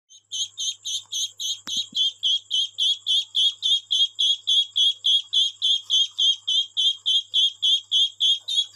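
A duckling peeping loudly and insistently, about four high-pitched peeps a second in an unbroken rhythm. This is the typical call of a duckling separated from its brood.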